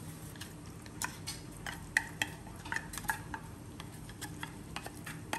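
Tuna can and utensil knocking and scraping against a stainless steel mixing bowl as canned tuna is added to rice: irregular light clinks, each with a short metallic ring, over a steady low hum.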